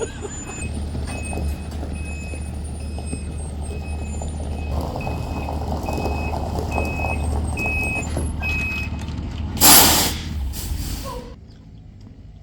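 Delivery truck backing up, its backup alarm beeping steadily over the engine's low running. Near the end comes a loud hiss of air as the air brakes are set, then the engine shuts off.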